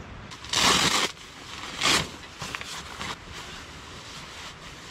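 Nylon down fabric swishing and rustling as down booties are pulled onto the feet. There is a loud swish of about half a second near the start, a shorter one about two seconds in, then softer rustles.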